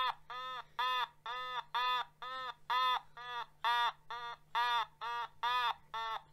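Otamatone electronic instrument played as a string of short notes, about two a second, each bending up and back down in pitch as its head is squeezed and released. The notes stay near one pitch, with a couple of quicker, shorter ones near the end.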